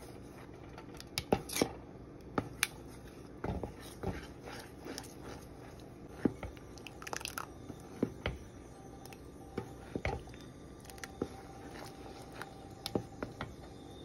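Wooden spoon stirring a thick peanut sauce in a pot, with irregular wet squelches and sharp clicks and knocks of the spoon, some a second or more apart.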